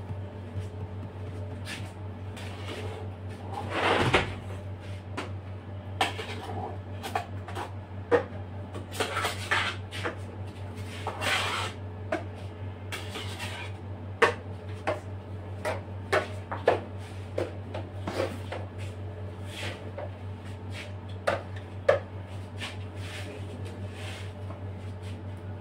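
Metal palette knife smoothing whipped-cream icing on a cake turntable: soft scraping swishes with many light clicks and taps of metal on the turntable and cream bowl, over a steady low hum.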